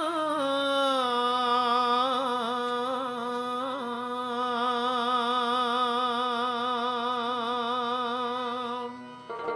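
Male kirtan singer holding one long devotional note with a wavering vibrato. The note slides down at the start and stops about nine seconds in.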